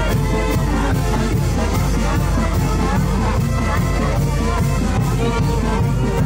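Live brass band (banda de viento) playing a lively tune, a sousaphone carrying the bass line under a steady beat.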